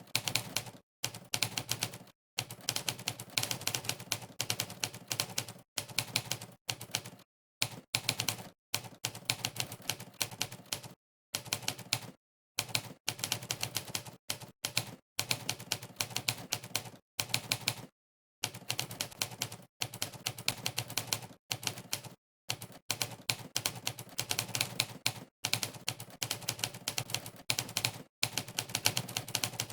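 Monkeytype's typewriter keypress sound effect, one typewriter key strike played for each key pressed during fast typing: quick runs of clacks broken by short gaps of dead silence between bursts.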